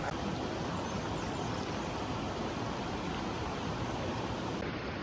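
Steady rushing noise with no distinct events, the even hiss of something like running water or wind.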